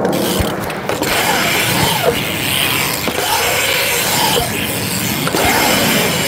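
BMX bike riding a concrete skatepark bowl: a steady rushing noise of tyres rolling on concrete, with a few short squeaks.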